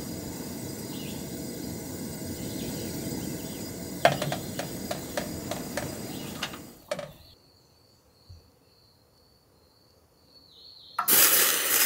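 Portable butane camp stove burner running with a steady hiss, with a few knocks as the kettle is handled about four seconds in. The burner is shut off about seven seconds in and the hiss cuts out suddenly, leaving near silence with a faint high steady tone. Near the end cold water splashes as it is poured into the kettle.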